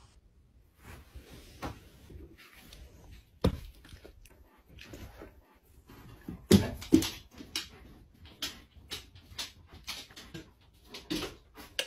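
Scattered clicks and knocks from a German Shepherd moving about a room, the loudest a close pair about six and a half seconds in.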